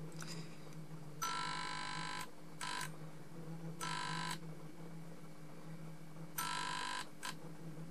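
Dying 20 W fluorescent tube and its fixture: a steady low mains hum broken by several short harsh buzzes, each lasting up to about a second, as the worn-out tube strikes and drops out again and again.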